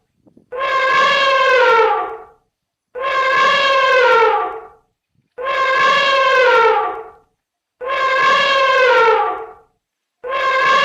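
An animal's long, drawn-out call, pitched and horn-like, dropping in pitch at its end, repeated the same way about every two and a half seconds, four times over.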